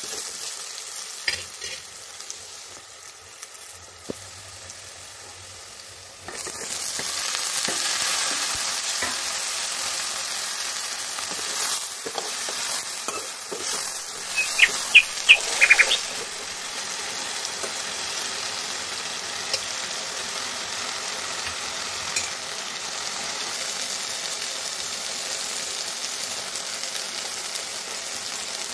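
Potato cubes frying in hot oil in a wok-shaped pan and stirred with a metal spoon. About six seconds in the sizzle suddenly grows louder and stays so as chopped green vegetables join the potatoes. A quick run of sharp metallic clinks from the spoon on the pan comes around halfway through.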